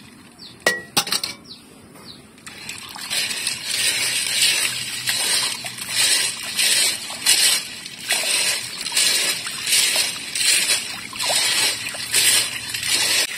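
Snail shells clinking as they are tipped from a metal colander into a pot of water, then water sloshing in repeated strokes, about two a second, as a hand swirls and rubs the snails to wash the mud from them.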